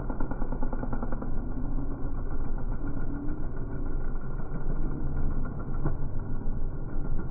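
Racing quad (ATV) engines running steadily on a dirt track.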